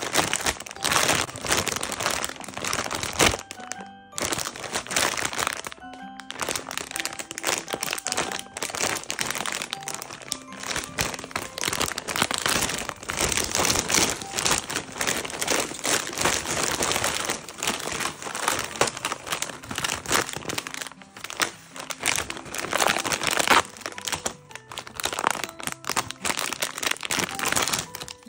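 Foil-lined plastic snack bag crinkling and crackling almost without pause as it is handled and opened, over soft background music.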